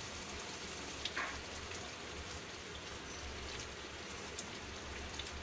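Onion and ginger-garlic paste sizzling steadily in hot ghee in a steel kadhai, with a few light clicks as a wooden spatula stirs it.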